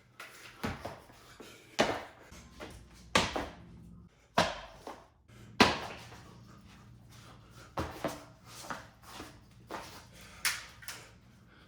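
Irregular sharp knocks and slaps from a double butterfly-knife form being performed, about a dozen strikes of uneven loudness. The loudest come in the first half, with lighter ones after.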